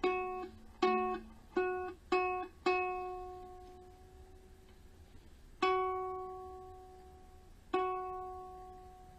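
A single string of a Kala Ukadelic soprano ukulele is plucked again and again on the same note during tuning. Five quick plucks come in the first few seconds, then two more are left to ring out. The string is still reading F sharp on the tuner.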